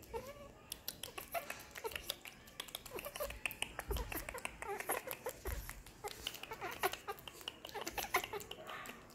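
Baby macaque making short, soft squeaks amid many quick, irregular sharp clicks.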